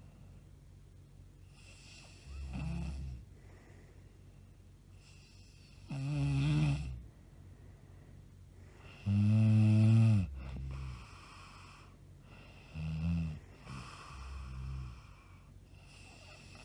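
A woman snoring in her sleep, with loud snores every few seconds. The loudest comes about nine seconds in as a deep, buzzing snore.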